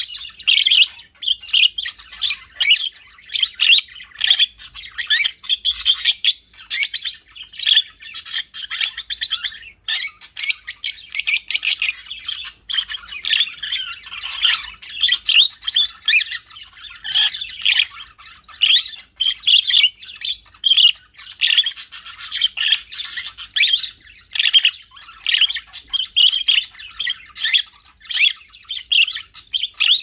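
Lovebirds chattering as they doze side by side: a continuous stream of quick, high chirps and squeaks.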